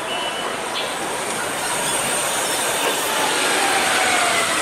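Steady vehicle noise of a busy street, growing louder toward the end, with a faint falling whine in the second half.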